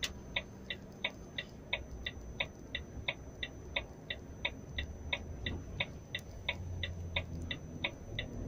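Turn-signal indicator ticking in an articulated lorry's cab, about three even ticks a second, over the low rumble of the lorry's diesel engine as it creeps to a stop.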